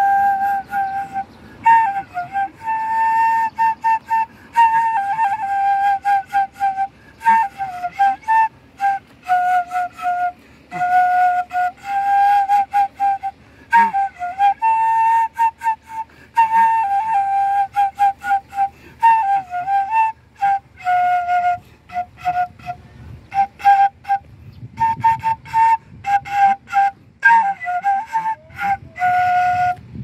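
Solo flute playing a single melody line of held notes, with short slides in pitch between them and brief breaks for breath.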